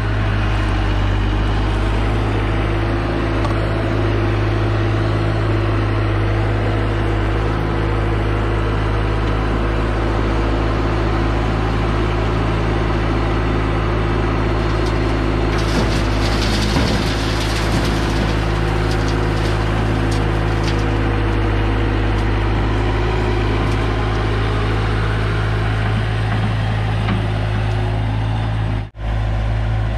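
Bobcat T250 compact track loader's diesel engine running steadily under work. About halfway through there are several seconds of clattering and hissing.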